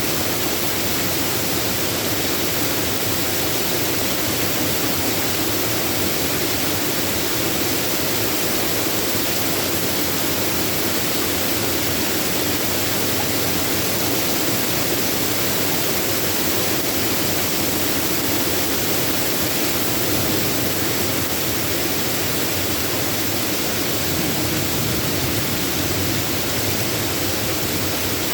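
Steady heavy rain, an even hiss with no change and no thunder.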